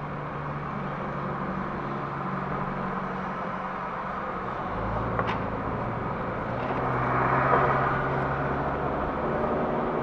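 Car engine and road noise heard inside the cabin as the car pulls out and accelerates, getting louder about seven to eight seconds in. A single sharp click about five seconds in.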